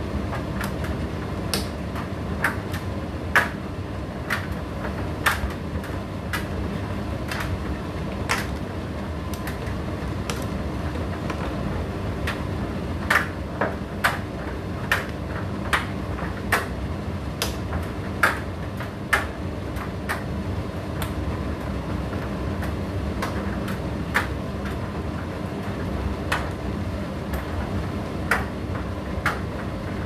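Indesit IDC8T3 condenser tumble dryer running: a steady hum from the turning drum, with irregular sharp clicks and knocks about once a second as the laundry tumbles.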